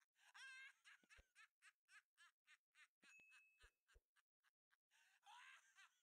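Faint recorded giggling laughter sound effect in quick repeated pulses, with a few soft low thuds.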